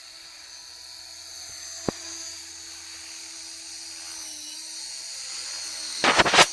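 Engine idling with a steady high-pitched squeal over it, the annoying squeak under investigation. There is a sharp click just under two seconds in and a loud, brief burst of noise about six seconds in.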